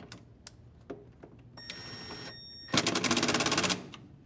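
Impact driver driving a screw into the washer transmission cover. A few light clicks come first, then a short motor whir, then about a second of rapid hammering as the impact mechanism engages and the screw runs down.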